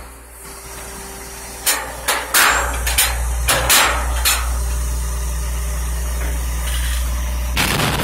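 Rear-loader garbage truck emptying a steel dumpster into its hopper: a run of loud metal bangs about two seconds in as the tipped container knocks against the hopper, over the truck's engine running at raised speed. A short rushing hiss comes near the end.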